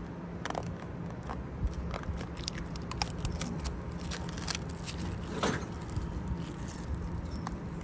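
Amber plastic side-marker light lens being pressed back onto its housing by hand. Its plastic wrap crackles and there are scattered small clicks and scrapes, with one sharper click about five and a half seconds in.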